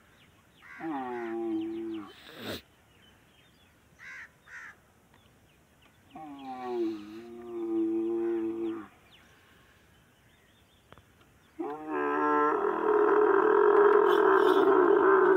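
A dromedary camel bellowing: three long calls, each starting with a falling pitch and then held. The third, beginning past the middle, is the loudest and roughest and is still going at the end.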